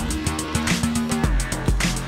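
Background music: an upbeat track with a steady beat and plucked guitar.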